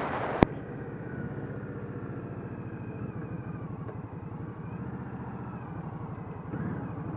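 Indian Scout Sixty's 999 cc V-twin running as the motorcycle rolls along at low speed, with an evenly pulsing beat. A sharp click about half a second in. The engine gets louder again about six and a half seconds in.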